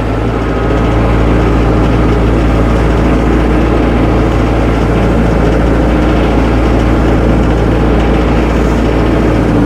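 Tractor engine running steadily at a constant speed while the tractor is driven slowly back and forth.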